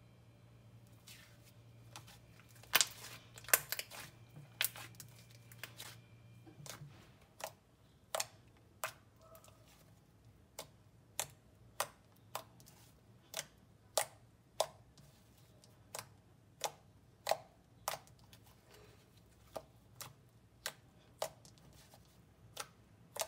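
Clay slime, soft clay being mixed into thick glossy slime, handled and pressed, giving sharp clicking pops. A quick burst of louder clicks comes about three seconds in, then single clicks follow in a run, about one every half-second to second.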